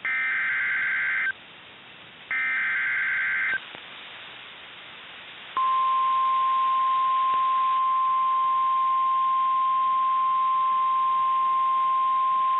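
NOAA Weather Radio Emergency Alert System activation. Two bursts of SAME header data tones, each about a second long and a second apart, are followed by a short stretch of radio hiss. Then, about five and a half seconds in, the steady single-pitch 1050 Hz warning alarm tone starts and holds, announcing a new severe thunderstorm warning.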